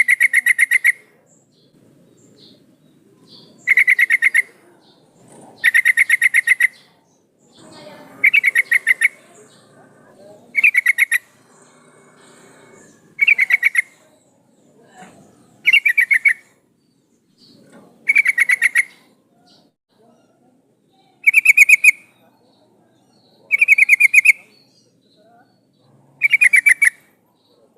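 Yellow-vented bulbul (trucukan) giving a short, rapid chattering call, repeated about every two and a half seconds, eleven times in all. It is a female's call to a male.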